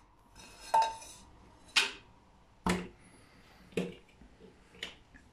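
Five sharp clicks and knocks, about one a second, of a small hard object being handled and set down on a kitchen windowsill, after a brief rustle near the start.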